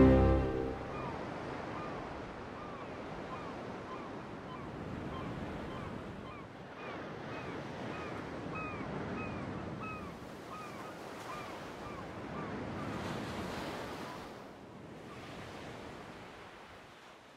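Sea surf washing on a shore, a steady noisy wash, with a run of short high arched chirps repeating about twice a second over the first two-thirds. The wash fades down near the end.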